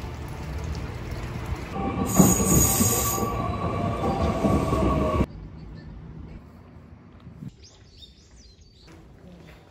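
Train running with a steady low rumble, then wheels squealing high-pitched on the rails from about two seconds in; the sound cuts off abruptly a little past halfway, leaving a much quieter background with a few faint clicks.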